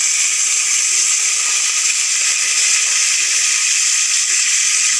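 Raw potato slices frying in hot oil in a kadai: a loud, steady sizzle.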